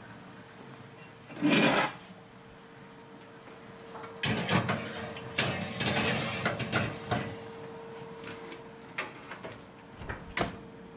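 A kitchen oven being loaded with a hardened steel knife blade for tempering. There is a short rasp about a second and a half in, then a few seconds of metallic clattering and scraping as the blade goes onto the wire rack, and a couple of clicks near the end as the oven door is shut. A faint steady hum runs underneath.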